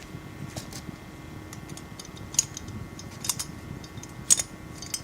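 Small metal clicks and taps of a Medeco lock cylinder being handled and test-fitted into a modified knob lock: a few separate sharp clicks, the loudest toward the end.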